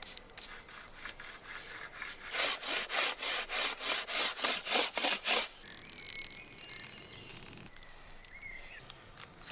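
Rhythmic scraping on a wooden yew bow stave, about a dozen quick strokes at roughly four a second, starting about two seconds in and stopping about halfway through, as the stave is shaved down to shape the bow.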